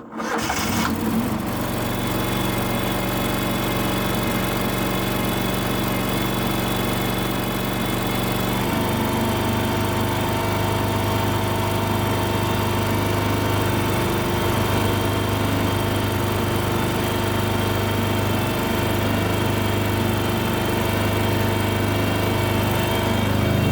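Kohler engine of a Terramite T5 mini loader running steadily and staying running on its newly fitted fuel pump, which cures its habit of stalling. Its note shifts slightly about nine seconds in.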